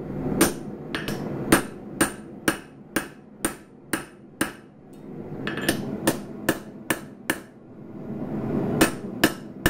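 Hand hammer striking a punch held on a red-hot mild-steel guard blank on an anvil, driving a hole through for the tang. Sharp metallic blows come about two a second, with a pause about halfway and a few more near the end.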